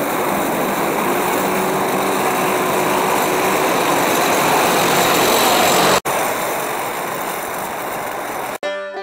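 Diesel engines of several Caterpillar bulldozers and a military 5-ton 6x6 truck running hard side by side, getting louder as they come closer, with a sudden break about six seconds in and a somewhat quieter stretch after it. Banjo music starts just before the end.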